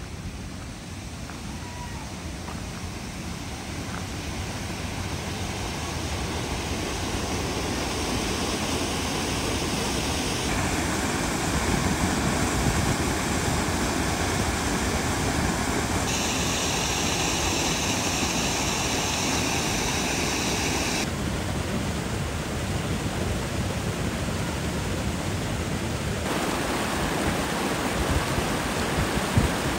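Rushing water of Rifle Falls, a steady roar of falling water that grows louder over the first several seconds and then holds level, its tone shifting abruptly a few times.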